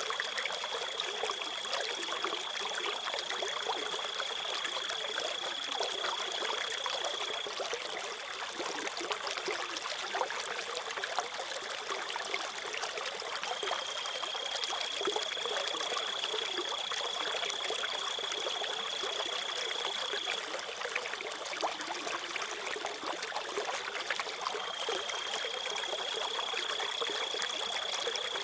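Water trickling and running steadily like a small stream, with a cricket's continuous high trill over it that drops out and comes back a few times.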